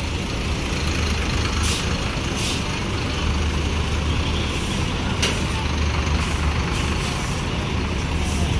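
Heavy diesel vehicle engine running steadily, with three short air-brake hisses about two, two and a half and five seconds in.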